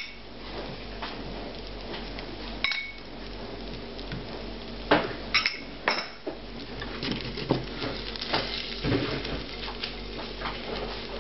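Metal spoon clinking and scraping against a sauce bowl, a plate and a frying pan as sauce and meat are spooned out, with scattered light knocks and a few sharper clinks.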